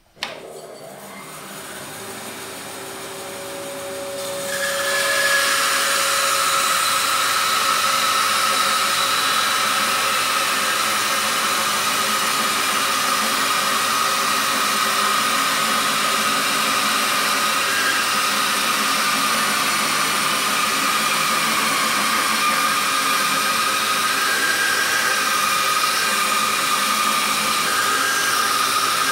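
Bandsaw motor starting and running up, then from about four seconds in the blade cutting a plywood blank turned on a circle-cutting jig: a steady, loud machine noise with a high whine.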